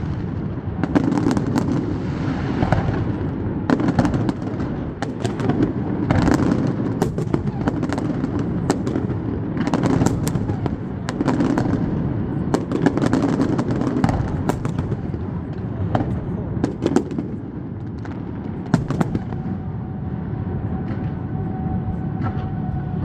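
Fireworks display going off: many sharp bangs and crackles in irregular clusters over a steady murmur of crowd voices. A faint steady tone comes in near the end.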